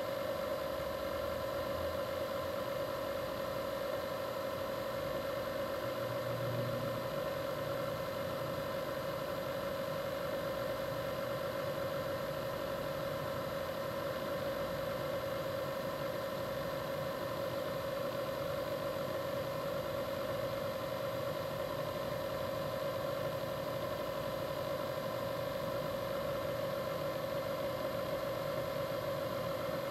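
A steady mechanical hum with a constant mid-pitched tone, unchanging throughout.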